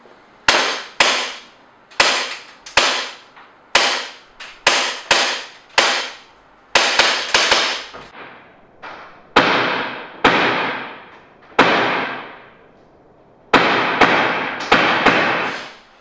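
Tokyo Marui M&P9 gas blowback airsoft pistol firing about two dozen really loud semi-automatic shots in irregular groups, each sharp crack trailing off in an echo.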